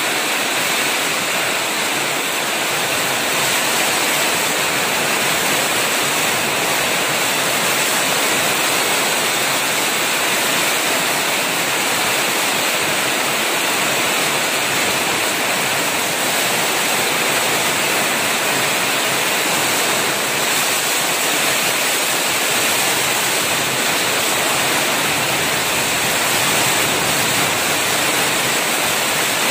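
Heavy rain pouring down in strong wind: a steady, loud rush of falling water.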